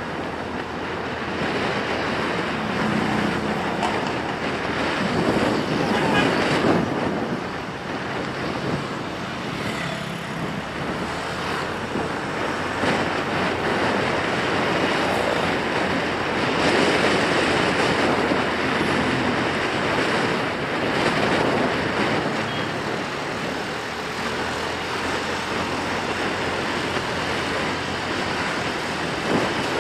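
Motorbike riding through traffic: a steady road and engine noise that swells and eases.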